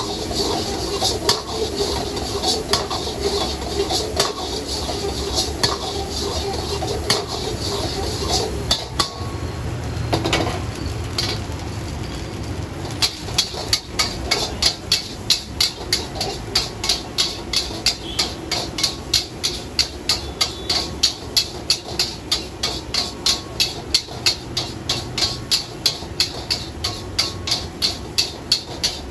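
Metal ladle scraping and clanking against an iron wok as fried rice is stir-fried over a gas burner. Irregular knocks at first, then from about halfway the ladle strikes the wok in a steady rhythm, about three times a second.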